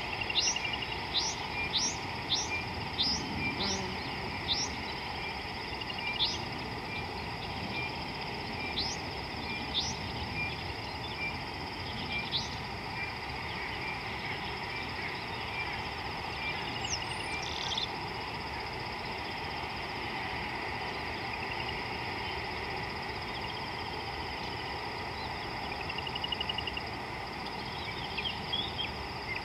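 Wild birds calling: short sharp whistled notes repeated about twice a second for the first few seconds, then scattered, over a steady high-pitched insect drone.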